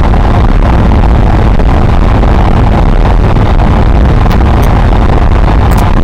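Suzuki Marauder 125's single-cylinder four-stroke engine running steadily through its original exhaust while cruising, mixed with heavy wind rumble on the microphone.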